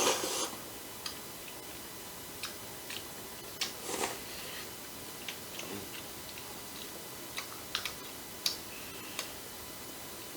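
Eating sounds: irregular light clicks of chopsticks against dishes, with quiet chewing of jajangmyeon noodles.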